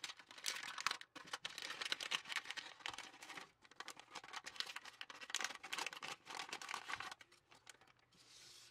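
Thin clear plastic packaging bag crinkling and rustling in irregular crackles as hands open it and pull out ribbon, felt stars and thread; the crackling stops near the end.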